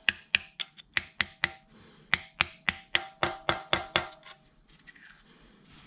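Hammer tapping a brass drift rod to drive the knee lock plunger into its hole in the cast-iron knee of a Bridgeport milling machine: a run of sharp metallic taps, each with a short ring, about three or four a second, with a brief pause near the middle, stopping about four seconds in. The plunger is stiff to seat, which the owner puts down to residue left in the hole.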